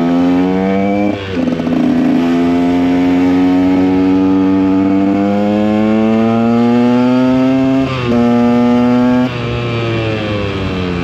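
KTM 125 EXC two-stroke motorcycle engine accelerating through the gears. The pitch climbs, drops at an upshift about a second in, climbs slowly for several seconds, drops at a second upshift near eight seconds, then falls away as the throttle is rolled off.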